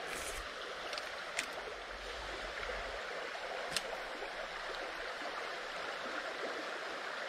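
Steady rush of water from a small stream running over a riffle, with a couple of faint clicks about a second and a half and nearly four seconds in.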